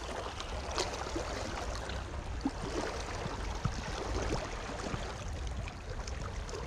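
Sea water washing gently against shoreline rocks: a steady hiss with a few faint small splashes.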